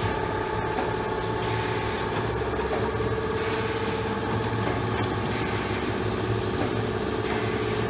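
Special Adhesive Process Machine MkIII F1 running steadily in continuous production as it feeds paper sheets, a steady mechanical hum with a fast, even ticking.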